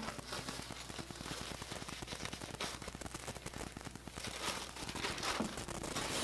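Faint crinkling and rustling of paper takeout packaging as it is handled, a steady crackle of small clicks that swells a little now and then.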